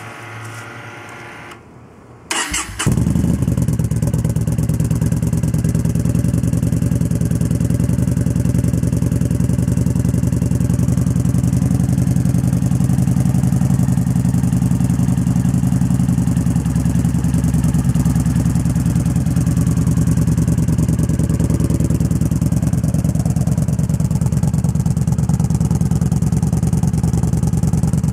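Yamaha Bolt's 942 cc V-twin cranked on the starter and catching about two and a half seconds in, then idling steadily through an XB08 Extremeblaster polished stainless slip-on glass-pack exhaust set up with 12 disk plates.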